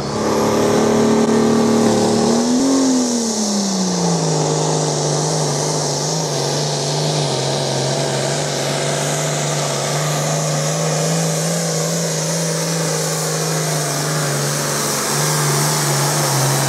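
Diesel pulling tractor's engine running hard under full load while dragging a weight-transfer sled. Its pitch holds high at first, rises briefly about three seconds in, then falls and stays steady at a lower pitch as the engine is pulled down by the building load.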